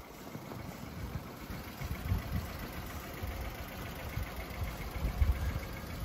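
Storm wind buffeting the phone's microphone in irregular low rumbling gusts, over a faint steady hiss of wind.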